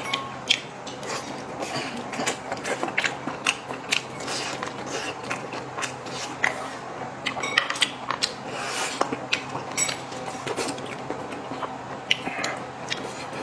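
A person eating close to the microphone: chewing food, with many short, irregular clicks throughout.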